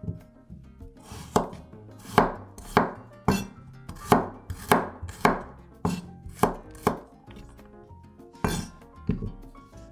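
Chef's knife chopping garlic cloves on a wooden cutting board: about ten sharp knocks a little over half a second apart, then a pause and one more knock near the end.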